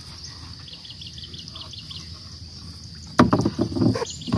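Water splashing and sloshing as a gill net is hauled up by hand beside a wooden boat, starting about three seconds in. A steady high insect drone runs underneath.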